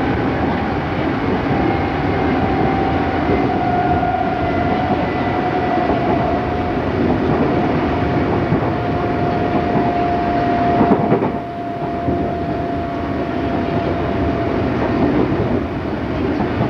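Field-chopper-controlled Odakyu 8000 series electric train running on the line: a steady rumble of wheels on rail with a high motor or gear whine holding a nearly steady pitch. A brief loud clatter comes about eleven seconds in, and after it the train runs a little quieter.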